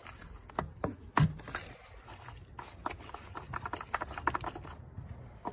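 Oil filler cap and dipstick of a 2015 Honda Civic engine being taken out by hand: a sharp knock about a second in, then a run of quick light clicks and scrapes as the dipstick is drawn from its tube.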